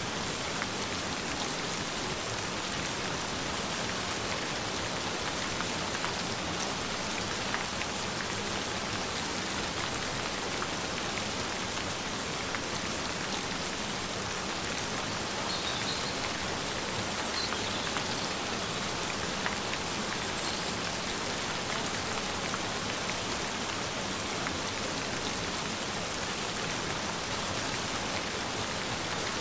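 Gentle rain falling steadily: an even, continuous hiss of rain on surfaces with fine drop patter.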